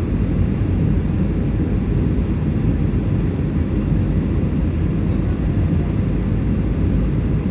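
Steady cabin noise inside a Boeing 737 airliner descending to land: a low, even roar of the engines and air rushing past the fuselage.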